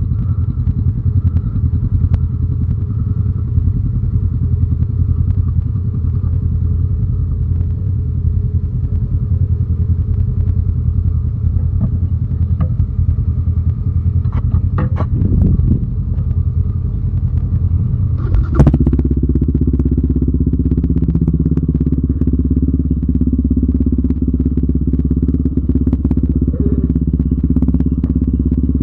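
Yamaha Raptor 700R quad's engine running at a steady low speed. About two-thirds of the way through, a sharp knock, and then the engine runs a little louder and steadier.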